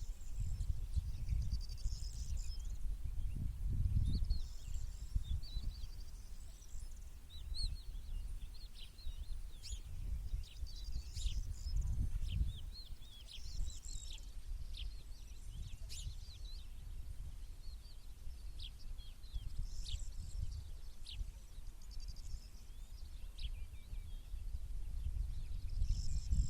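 Small birds singing and chirping, with many short, high calls scattered throughout, over a loud, fluctuating low rumble.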